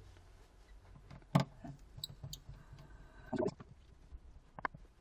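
Scattered sharp clicks and light taps from small plastic and metal parts as a Samsung Galaxy S4 is opened up and its SIM and memory cards are taken out. The loudest click comes about one and a half seconds in, with a quick cluster a little past the middle.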